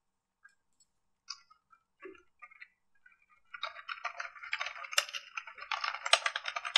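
Computer keyboard typing: a few scattered key clicks, then a fast, continuous run of keystrokes from about three and a half seconds in.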